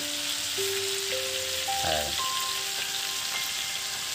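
Chicken breast pieces sizzling as they fry in oil in a pan, a steady hiss. A few soft background music notes step upward over it.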